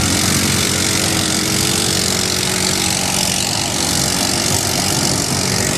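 Quad (ATV) engine running hard at a fairly steady pitch as the quad spins doughnuts in deep mud, with a steady hiss over it.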